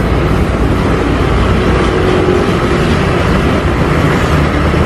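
John Deere farm tractor's diesel engine running steadily under load as it pulls a plough through a tilled field.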